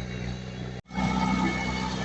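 Diesel engine of heavy earthmoving machinery running steadily. The sound cuts out for an instant a little under a second in and comes back slightly louder.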